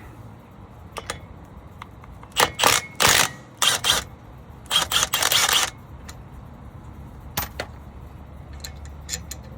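Ratchet wrench clicking in several bursts as a front brake caliper bolt is loosened and backed out, with single metal clicks before and after.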